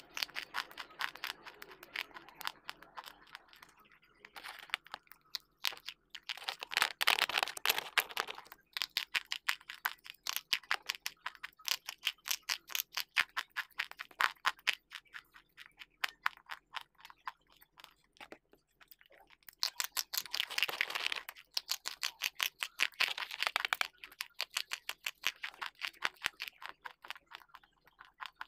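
Close-miked chewing of hard, dry slate pencil: rapid brittle crunches, several a second, coming in bursts with short pauses between bites. The loudest run comes about seven seconds in.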